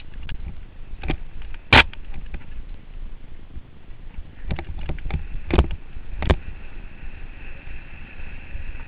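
Mountain bike descending a rough, rocky trail, heard from a helmet camera: a steady low rumble of the ride, with sharp knocks and clatter as the bike jolts over rocks. The loudest knock comes about two seconds in, and there is a cluster of knocks around five to six seconds. Near the end a steady hiss sets in.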